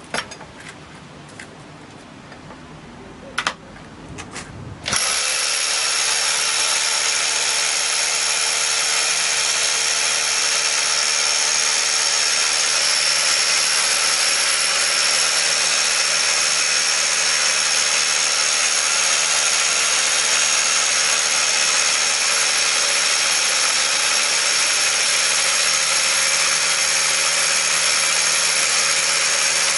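Corded SDS-plus rotary hammer drilling a long masonry bit down into a block. After a few knocks, the drill starts about five seconds in and runs steadily under load.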